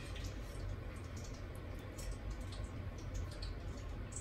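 Cats licking their fur and paws while grooming: faint, irregular wet clicks over a low steady hum.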